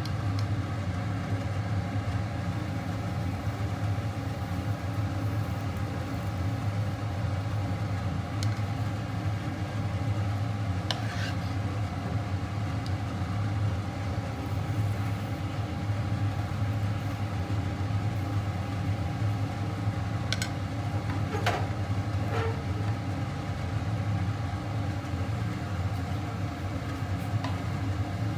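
Steady machine hum with a few light clicks and taps in the middle stretch.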